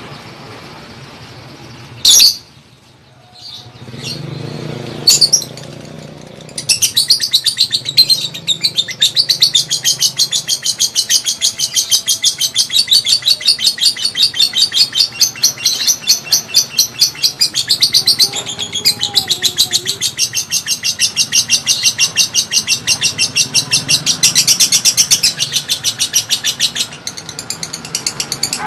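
Young lovebird singing: two short sharp calls, then a long run of fast, evenly repeated high chirps, the rapid 'ngetik' (typing) style of song, which breaks off shortly before the end.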